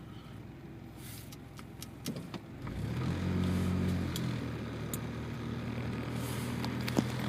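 An engine starts to be heard about two and a half seconds in and then runs steadily with a low hum, with scattered clicks and ticks throughout.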